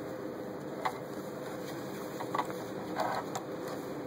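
Fabric and thread being handled at a Janome Super Automatic 348 sewing machine over a steady low hum: scattered light clicks, and a brief rustle about three seconds in as the fabric is drawn out from under the presser foot.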